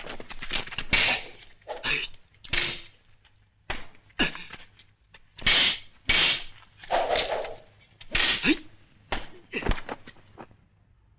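Studio sound effects of a staged kung fu fight: a rapid series of sharp swishes and hit smacks, a dozen or more, coming every half second to a second.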